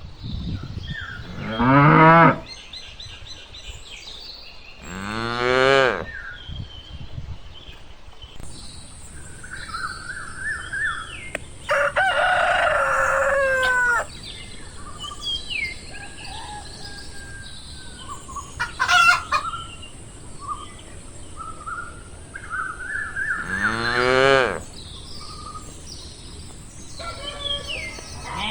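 Farmyard animal sounds: three long calls from livestock that fall in pitch, a rooster crowing about twelve seconds in, and short bird chirps scattered throughout.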